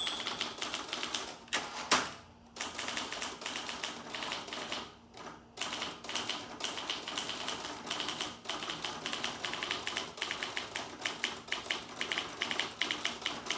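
Olympia SG1 manual typewriter being speed-typed: rapid, uneven clatter of typebars striking the platen. A single loud knock about two seconds in, and short pauses in the typing.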